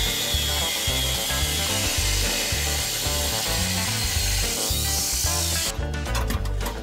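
Angle grinder with a cut-off wheel cutting through a steel exhaust pipe: a steady, loud grinding hiss with a high whine that dips slightly as the wheel bites, stopping suddenly about five and a half seconds in. Background music with a steady bass line runs underneath.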